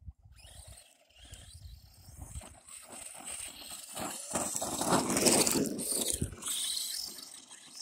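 Arrma Senton 4x4 RC truck's electric motor whining as it drives over a loose, rocky hillside, its tyres scrabbling and throwing gravel. It grows louder as the truck comes close, loudest about five seconds in, then fades.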